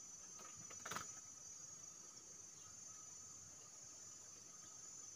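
Faint, steady high-pitched drone of insects, with one brief knock about a second in.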